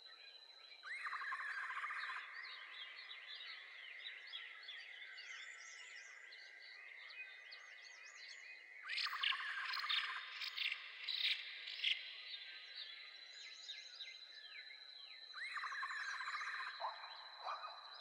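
A chorus of birds chirping in many quick falling notes over a steady high insect drone. A louder rapid trill comes in three times: about a second in, around nine seconds, and near the end.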